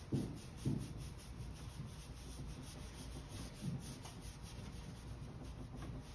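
Wax brush scrubbing beeswax onto a chalk-painted wooden dresser drawer in quick back-and-forth strokes, the bristles rubbing softly on the wood. Two soft low thumps in the first second.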